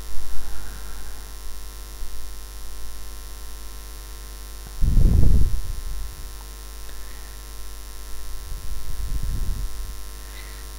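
A steady low electrical hum with a buzz of even tones. Wind buffets the microphone twice, in low rumbling gusts about five seconds in and again about nine seconds in.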